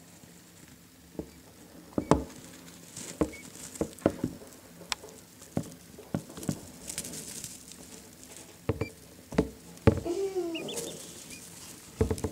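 Quail chicks moving on wood shavings: irregular sharp taps and rustles of pecking and scratching, with a few short peeping calls about ten seconds in and again near the end.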